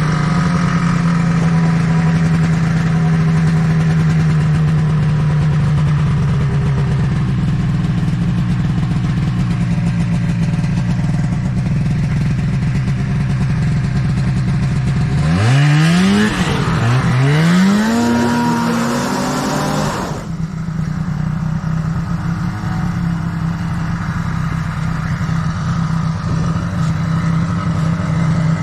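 Snowmobile engine running steadily, then about halfway through revving up and down several times over a few seconds before settling back to a steady run.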